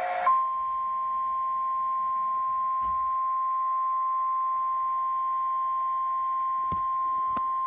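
Emergency Alert System alert tone before a severe thunderstorm warning. A harsh, buzzy tone cuts off about a third of a second in and is replaced by a single steady pure tone a little above 1 kHz, matching the National Weather Service's 1050 Hz warning alarm. Two faint clicks come near the end.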